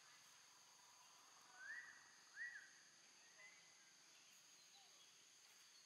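Faint steady high-pitched insect drone, with two short animal calls that rise and then fall in pitch, close together, about two seconds in.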